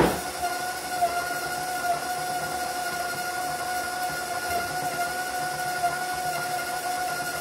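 Electric stand mixer running steadily with a constant whine while it creams butter and sugar. A sharp knock comes right at the start, and a few lighter clicks follow.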